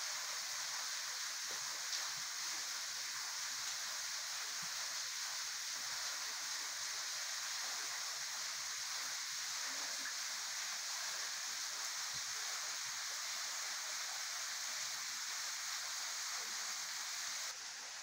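Small waterfall spilling down a rock face: a steady hiss of falling and splashing water. It drops a little in level near the end.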